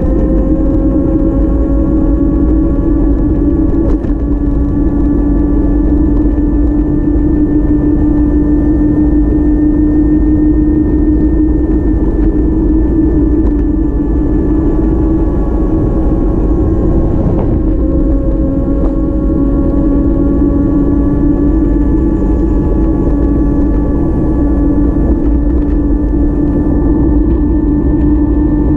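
A vehicle engine running over a low rumble; its tone climbs slowly, drops about 17 seconds in, then climbs again.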